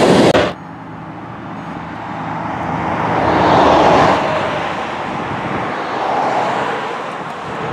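Loud train noise cuts off abruptly about half a second in. It is followed by road traffic: a passing vehicle swells up and fades, then a second, fainter one passes.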